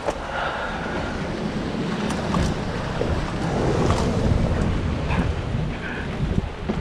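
Waves breaking against the foot of a rock sea cliff, a steady rumbling wash that swells a little midway, with wind buffeting the microphone.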